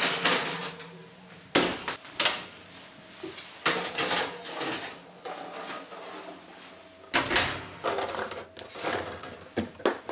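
Metal baking tray of chestnuts slid onto and pulled off a wire oven rack, with the oven door opening and shutting: a series of separate clanks and knocks, with a longer rattle a little after seven seconds in.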